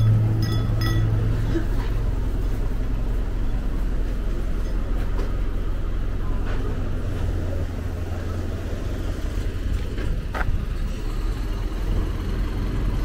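A bus engine idling close by with a steady low rumble, with a few short metallic clinks in the first second and a single click near the end.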